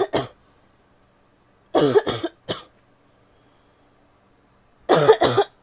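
A woman coughing wet, barky coughs in short fits: a cough right at the start, a fit of three about two seconds in, and another fit of two or three near the end, with quiet pauses between.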